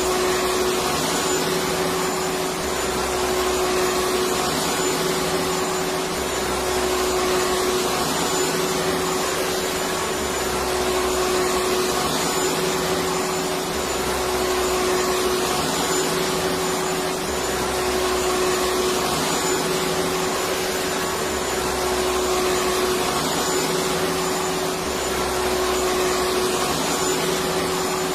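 Electric vacuum cleaner running steadily: a constant rushing hiss with a steady hum, and a low throb underneath that swells and fades about every two seconds.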